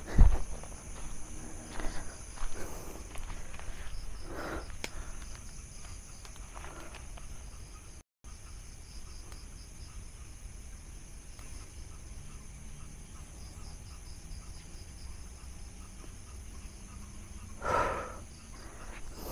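Insects shrilling steadily. A loud thump comes right at the start, a few brief rustling sounds follow in the first seconds, and a short louder sound comes near the end.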